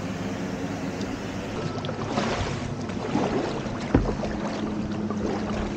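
Kayak paddle dipping and splashing in calm river water over a steady low engine hum from a motorboat out on the river. A single sharp knock comes about four seconds in.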